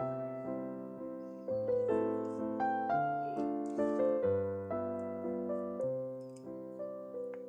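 Background piano music: a gentle, unhurried tune of chords and single notes, each struck and fading away.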